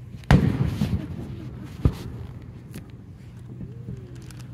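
Aerial firework shells bursting. A loud boom about a third of a second in rumbles on for about a second, then a second, sharper bang comes a couple of seconds in.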